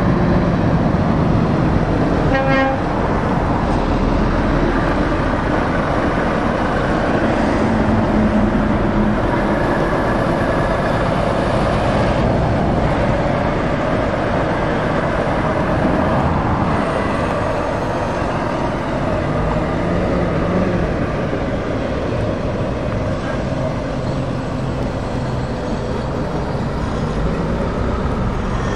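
Heavy lorries and cars passing by in a slow convoy: a steady rumble of diesel engines and tyres on the road, with one short horn toot about two seconds in.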